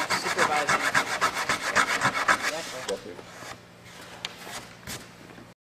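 Hand sanding of cured smoothing compound on an aircraft wing: rapid, rhythmic rubbing strokes for about three seconds, then the strokes stop, leaving a low hum and a few light clicks.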